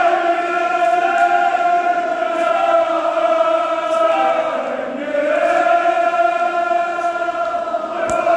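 A group of men chanting a Kashmiri marsiya, a mourning elegy, together in long drawn-out sung notes. A new phrase starts about five seconds in.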